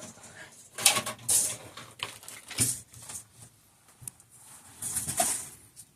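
Small metal shock parts and tools handled on a workbench and tray: a few short clatters and scrapes with pauses between.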